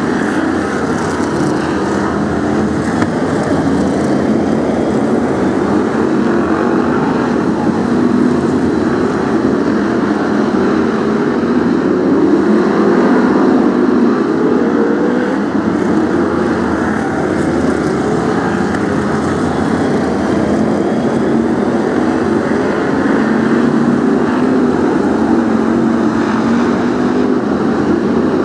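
A pack of BriSCA F1 stock cars racing round an oval. Their V8 engines run loud and continuously, with engine notes rising and falling as cars accelerate and pass.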